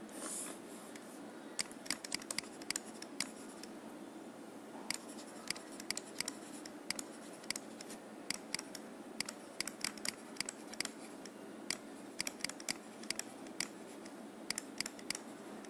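Stylus tapping and scratching on a pen tablet while handwriting: irregular sharp clicks, several a second in clusters, over a steady low background hum.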